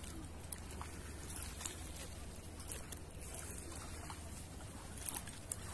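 Small waves lapping at the lakeshore in irregular little splashes, over a steady low rumble.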